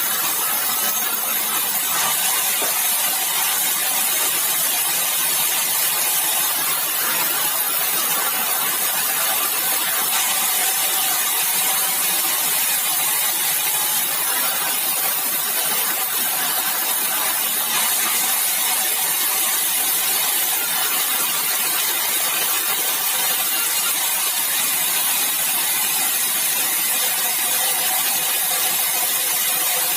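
Sawmill machinery running steadily: a continuous mechanical hum with a bright hiss on top, unbroken throughout.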